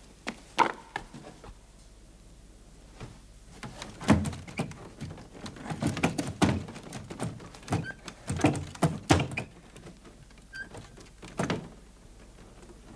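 A series of irregular knocks and thuds, clustered most thickly in the middle, then tailing off.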